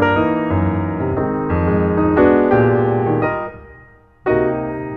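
Background piano music: notes and chords ringing on, dying away almost to nothing shortly before the end, then a new chord comes in.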